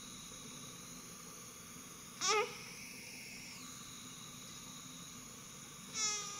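Newborn baby vocalising: a short wavering whimper about two seconds in, then a cry starting near the end, over a steady low hiss.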